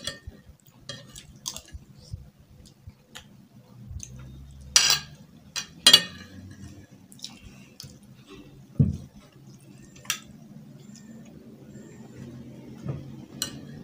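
Spoon and forks clinking and scraping on plates while two people eat and chew, with two louder sharp clinks about five and six seconds in and a dull thump near nine seconds.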